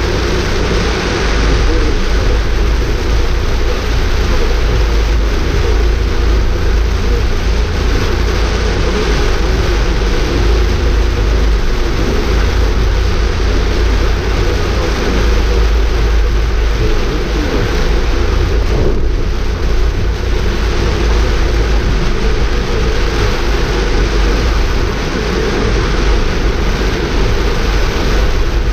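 Steady, loud noise of a car driving through heavy rain, heard from inside the cabin: rain on the windshield and body and tyres on the wet road over a low rumble of engine and road.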